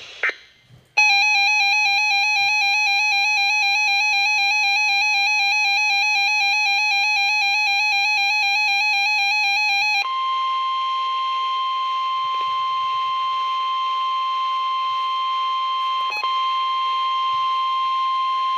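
An electronic alarm warbles continuously for about nine seconds, then switches to the NOAA Weather Radio 1050 Hz warning alert tone held steady over radio hiss; the tone signals that a warning broadcast follows. A brief click comes near the end.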